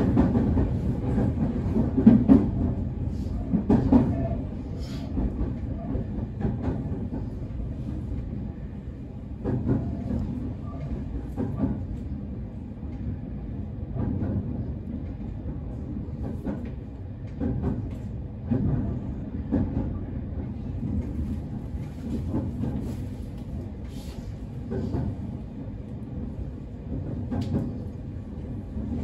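Semboku 9300-series electric train running along the line: a steady low rumble of wheels on rail, broken by sharp clacks at irregular intervals over rail joints and points.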